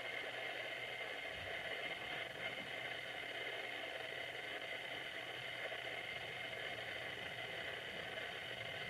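Steady interior noise of a JR West 221 series electric train, heard from the front of the car behind the driver's cab, an even hum and rush with no separate events.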